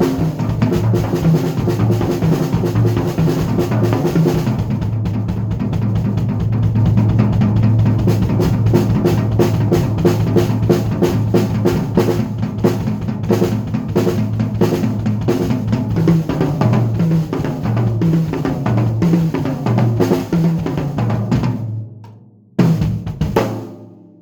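Drum kit played with a pitched bass line underneath: dense bass drum and snare strokes that stop about three seconds before the end, then one last hit that fades out.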